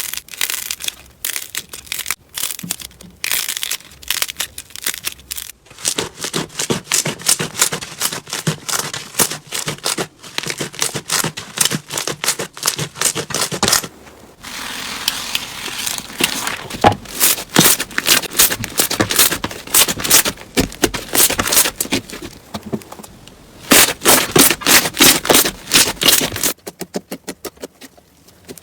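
Slime being squeezed and pressed in the hands, giving rapid runs of crackling and popping clicks with short pauses between them. The clicks stop shortly before the end.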